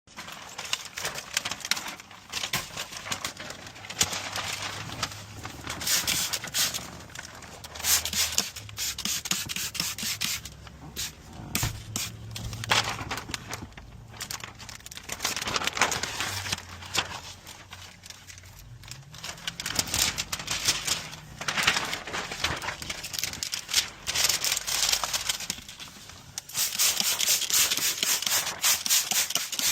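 Window tint film being worked on glass: repeated rubbing and scraping strokes of a squeegee or hard card, each lasting a few seconds, with a faint low hum underneath.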